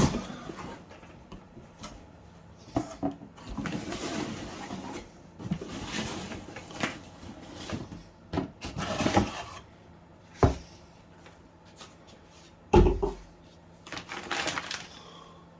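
Handling noises as a crossbow is unboxed: packaging rustling and scraping, with scattered knocks and two sharper, louder knocks about ten and thirteen seconds in.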